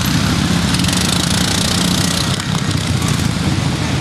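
Engines of a pack of racing riding lawn mowers running hard together around a dirt oval, a loud, steady overlapping engine drone.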